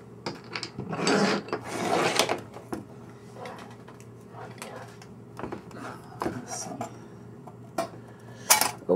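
Sheet-steel cover of a rack-mount modulator chassis being worked loose by hand: metal sliding and scraping on metal, with scattered clicks and knocks. The longest scrapes come about one and two seconds in.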